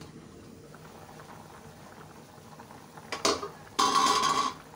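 Beef and potato curry boiling in a covered karahi, a steady low bubbling. A little after three seconds in, the aluminium lid is lifted off, with two short, loud noises.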